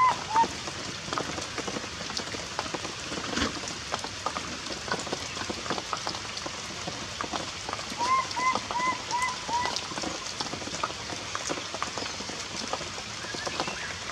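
Heavy rain falling steadily on surfaces, a constant hiss full of tiny drop hits. About eight seconds in, a quick run of five short high calls sounds over it.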